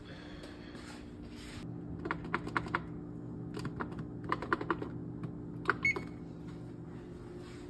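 Light clicks and taps in quick clusters, about two to five seconds in, over a steady low hum.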